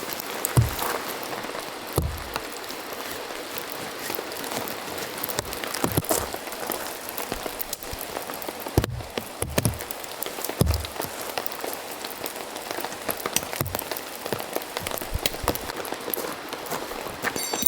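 Steady rain falling, with many small drop ticks and every few seconds a heavier drop landing with a low thud.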